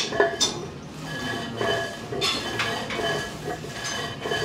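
Metal gym weights on a Smith machine clinking and clanking: several separate knocks, each followed by a short metallic ring.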